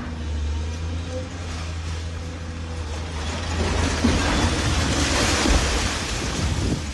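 Hyundai long-reach demolition excavator's diesel engine running steadily, then from about three and a half seconds in the crash of concrete and brick rubble falling as a section of the building is pulled down, loudest about four and five and a half seconds in.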